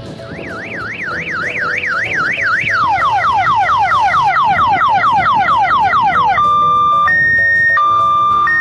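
Electronic siren cycling through its tones: a fast up-and-down warble, then quick falling yelps about six a second, then from about six seconds in an alternating two-tone hi-lo. It grows louder over the first three seconds and plays over a quieter electronic melody.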